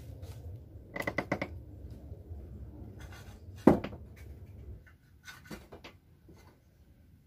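Wooden knocks and clatter from firewood sticks and a plank door being handled: a quick run of knocks about a second in, one sharp, loud knock a little later, and a few lighter knocks near the end.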